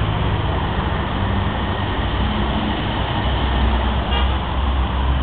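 Diesel multiple unit's engine running steadily with a low hum. A brief faint high-pitched note comes about four seconds in.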